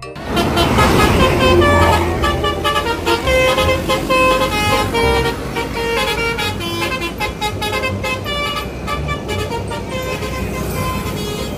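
Bus telolet horn, a multi-tone musical air horn, playing a long run of short notes that step up and down in pitch, over the low running of the bus engine.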